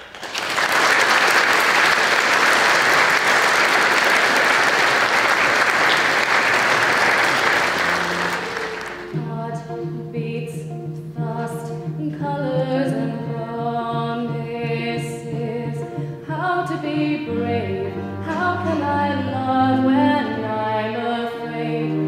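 A congregation applauding for about nine seconds, then music begins: a woman singing solo over an instrumental accompaniment with sustained low notes.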